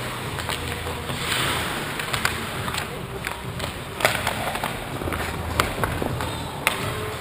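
Ice hockey skates scraping and carving on rink ice, with a longer hissing scrape about a second and a half in and several sharp clacks of sticks and puck.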